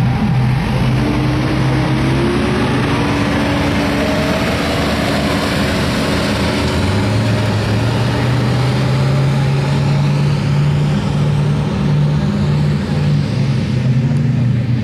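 1985 Chevrolet pickup's gas engine running hard under load while it drags a truck-pulling sled through dirt. Its pitch climbs over the first few seconds as the revs rise, then it holds a steady heavy note.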